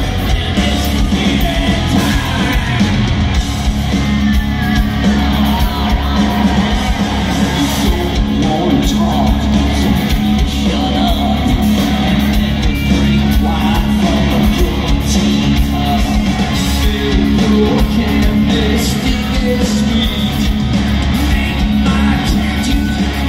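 Live hard rock band playing loud through a concert PA: electric guitars, bass and drums, with a voice singing over it.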